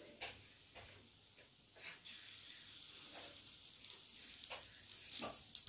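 Rava (semolina) batter sizzling faintly as spoonfuls are dropped into the hot oiled cavities of an appe pan. A few light taps of the steel spoon come between the spoonfuls.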